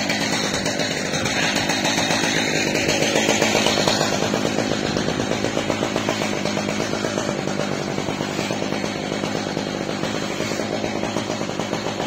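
Chainsaw engine of an Alaskan chainsaw mill running steadily without a cut; the sound holds even throughout.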